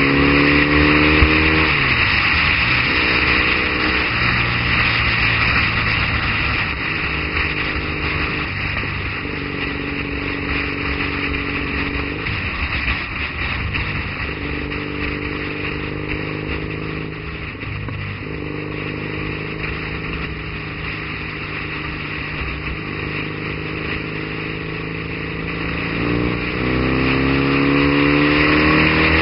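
Triumph Bonneville's parallel-twin engine running at road speed, rising in pitch as it accelerates in the first second or two and again near the end, holding roughly steady with a few brief dips in between, under a constant rush of wind and road noise.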